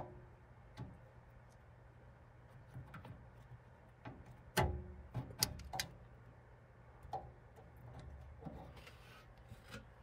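Faint, scattered clicks, knocks and rubbing as a furnace control board is squeezed free of its plastic mounting buttons and handled among its wires, with pliers working at the board. The sharpest click comes about halfway through.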